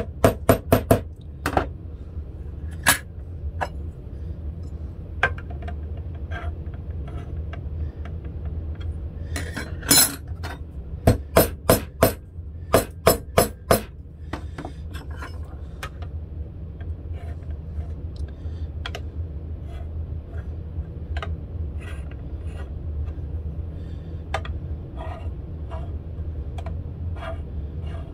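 Small fret hammer tapping high frets down into an electric guitar's fretboard, seating them instead of filing them level. The taps are sharp and come in short runs: a few at the start and a quick burst of about eight a little before the middle, then lighter scattered clicks.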